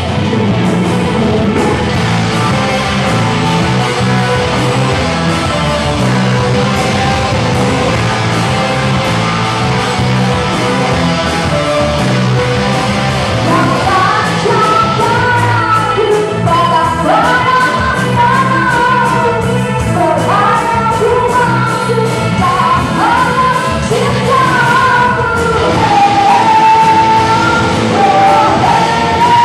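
Rock band playing live, an instrumental passage at first, then a lead singer's voice comes in about halfway through and carries the melody over the band.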